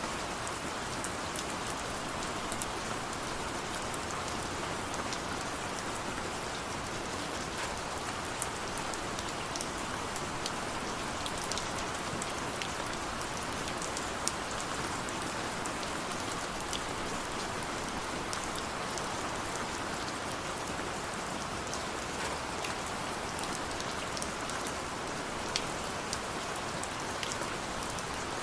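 Steady rain falling, a continuous even hiss with scattered sharper drop ticks throughout.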